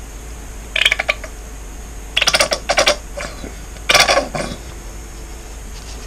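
Three short bursts of rapid clicking and clatter from hard objects being handled, about one and a half seconds apart, over a steady low hum.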